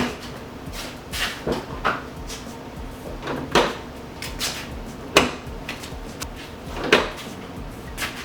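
2015 Subaru WRX fuel filler door being released and shut again and again, a sharp click or knock every one to two seconds. The door is being tested after fabric was packed in to tame its over-stiff spring, so that it pops fully open instead of jamming half-way.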